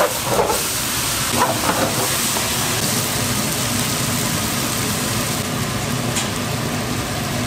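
King oyster mushrooms sizzling as they are stir-fried in a hot pan: a steady loud hiss, with a couple of light knocks in the first two seconds.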